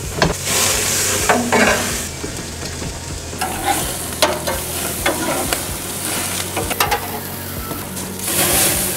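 Burger patties sizzling on a propane gas grill over flare-ups, with clicks and scrapes of a metal spatula on the grate. Near the end comes a short hiss of water sprayed from a spray bottle at the flames.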